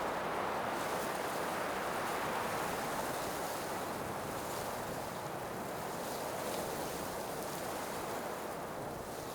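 Blizzard wind blowing, a steady rushing noise that slowly grows quieter.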